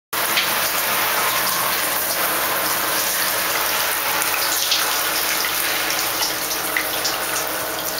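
A shower running, its water spraying steadily.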